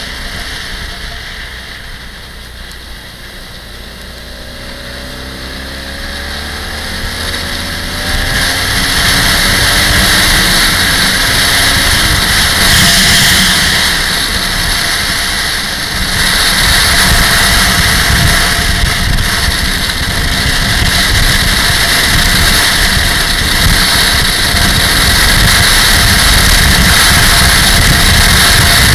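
Motorcycle engine running under way, its pitch gliding up and down through the first several seconds. About eight seconds in, a loud, steady rush of wind on the microphone grows over it and stays.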